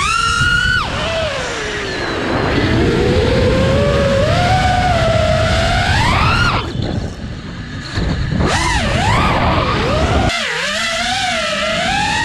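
FPV quadcopter motors whining, the pitch sweeping up and down with the throttle, with wind rumbling on the microphone. About seven seconds in the whine drops and goes quieter for about a second, then spools back up.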